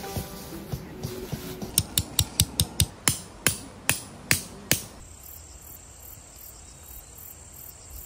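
A hammer driving a tent peg into the ground: a quick run of about a dozen sharp strikes, roughly three a second, over about three seconds. Then a faint, steady high-pitched insect drone.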